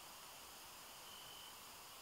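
Near silence: a faint even hiss, with one short high-pitched insect chirp about a second in.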